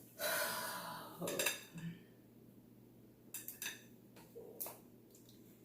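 A short rustling hiss in the first second, then a few scattered light clicks and clinks of cutlery and dishes as a seafood boil is picked through by hand.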